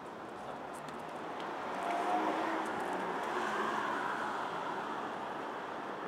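Street traffic: a car driving past on the road, its tyre and engine noise swelling about two seconds in, then holding steady.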